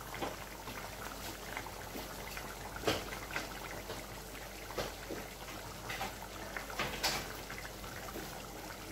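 Pot of soup simmering: faint bubbling with a few scattered pops and clicks.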